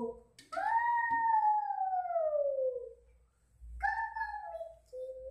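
Long drawn-out vocal wails, each falling in pitch: one of about two and a half seconds, then a shorter one about four seconds in, then a steadier held note near the end.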